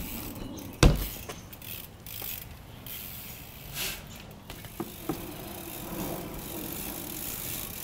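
BMX bike being ridden on a wooden ramp and a concrete driveway: a loud sharp thud about a second in, then scattered smaller knocks and the clicking of the rear hub's freewheel.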